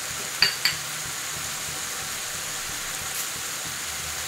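Onion-tomato masala sizzling steadily in an aluminium kadhai, with two sharp, ringing metal clinks about half a second in.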